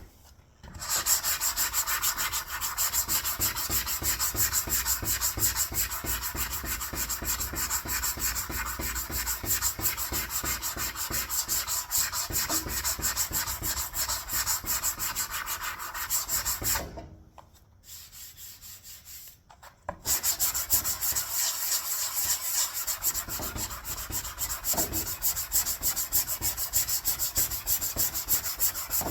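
Sandpaper sanding cured Upol body filler on a car panel, in quick continuous scratchy strokes, stopping for about three seconds just past the middle and then going on.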